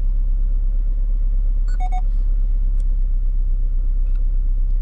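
Saab 900 four-cylinder engine idling: a steady low rumble with an even pulse. A short electronic beep sounds about two seconds in.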